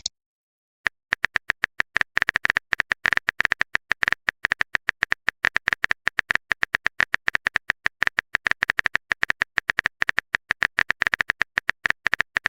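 Rapid, uneven clicks of a phone on-screen keyboard typing sound effect, several taps a second, starting about a second in and running on as a message is typed out.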